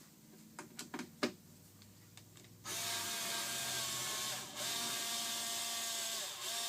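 Cordless drill-driver whirring in two runs of about two seconds each, backing screws out of the robotic pool cleaner's plastic pump housing, its pitch sagging as it stops each time. A few light handling clicks come before it.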